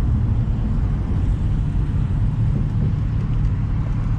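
Single-turbo Infiniti G35's V6 running steadily while cruising, with road noise, a low even drone heard from inside the cabin.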